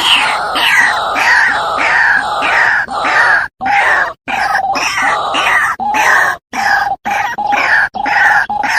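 White-breasted waterhen (ruak-ruak) calling over and over, giving harsh, rasping 'kru-ak' notes about two a second. The calling is broken by a few abrupt silent dropouts.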